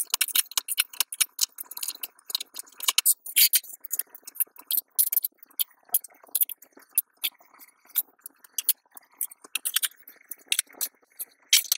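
LEGO bricks being handled and pressed together: many quick, irregular little clicks and clatters of small plastic pieces.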